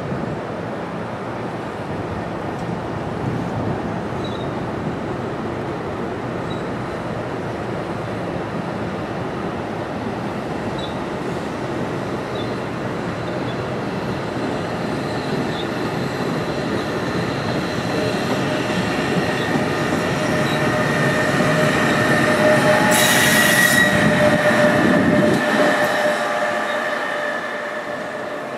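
NJ Transit Multilevel push-pull passenger train rolling past on curved track: a steady rumble with squealing wheels. The squeal grows louder toward a peak about 23 s in, where there is a brief sharp burst of noise, then the train fades.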